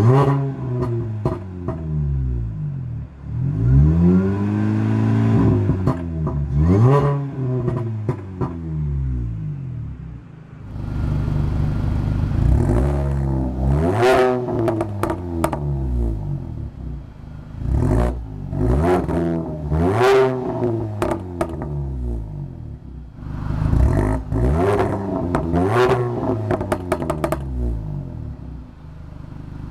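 Supercharged 1.6-litre four-cylinder of a 2006 Mini Cooper S with a Borla exhaust, revved repeatedly while standing still, the note rising and dropping back to idle about eight times, with supercharger whine. It is heard first from inside the cabin, then at the twin tailpipes.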